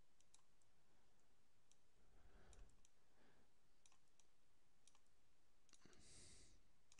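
Near silence: faint computer mouse clicks scattered through, with a short soft hiss about six seconds in.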